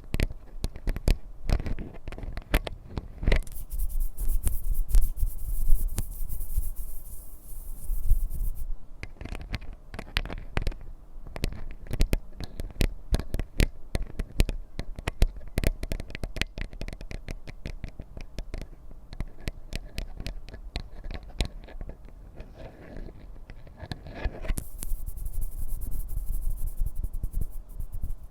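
Rapid, irregular ASMR tapping and scratching on objects, many light taps a second, with a stretch of high hiss a few seconds in and another near the end.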